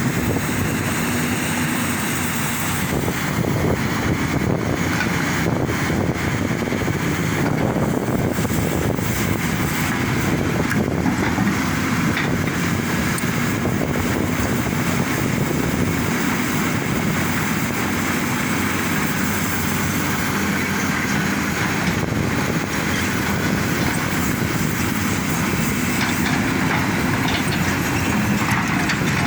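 Diesel engines of an excavator and a bulldozer running steadily as they spread soil, with a constant fine clatter over the engine drone.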